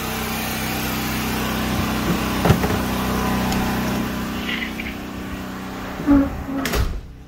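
Predator 9000 portable gas generator running steadily under load, its engine hum fading after about four seconds. Two sharp knocks come near the end.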